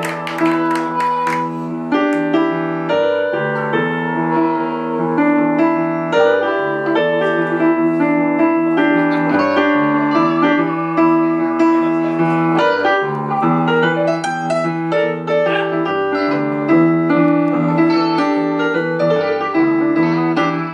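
Solo piano played on a stage keyboard: chords and a melody line with held notes, after some strumming from the band in the first couple of seconds.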